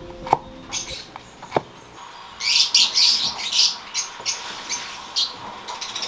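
A few sharp knife chops on a wooden cutting board, then a flock of small parrots chirping in quick shrill bursts, loudest about two and a half to four seconds in.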